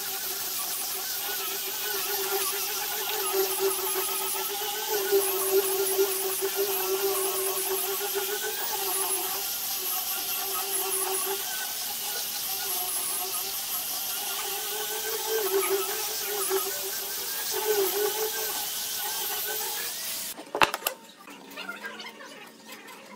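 Angle grinder fitted with a sanding disc running against a wooden tabletop: a steady high whine whose pitch wavers slightly as it is worked over the surface. About 20 seconds in the sound stops abruptly, followed by a sharp knock.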